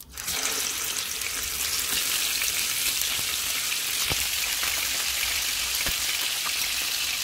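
Hilsa fish steaks frying in hot oil in a pan: a steady sizzle with scattered sharp pops.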